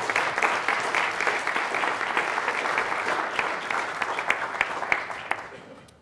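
Audience applauding: dense clapping from many hands that tapers off and stops near the end.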